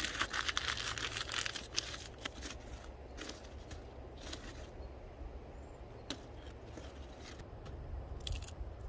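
Paper crinkling and dry twigs snapping as kindling is laid on crumpled paper for a campfire: dense crinkling for the first two seconds, then scattered sharp snaps.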